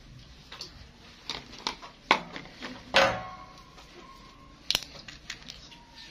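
Scattered clicks and knocks of a plastic tub, applicator brush and dye bottle being handled while hair dye is brushed onto dreadlocks. The loudest knocks come about two and three seconds in, with a sharp click near five seconds.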